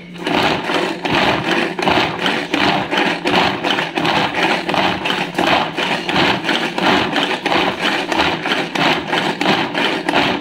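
Prestige pull-cord manual vegetable chopper worked in quick repeated pulls, each pull spinning its blades through chunks of onion in the plastic bowl, about three pulls a second: the onion is being chopped fine.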